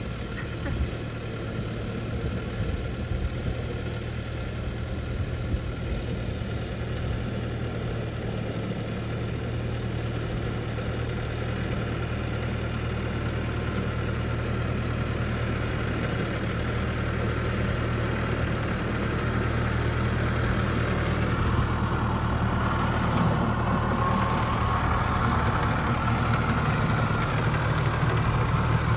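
Deutz farm tractor's diesel engine running steadily under load while pulling a rear-mounted mower through grass. It is a steady low drone that grows louder over the last third as the tractor comes closer.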